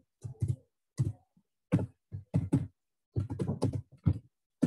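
Computer keyboard typing: a string of short, uneven key clicks in small clusters, with brief silent gaps between them.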